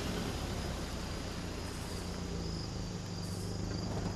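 Steady high-pitched insect chirring, typical of crickets in woodland, with a low steady hum underneath.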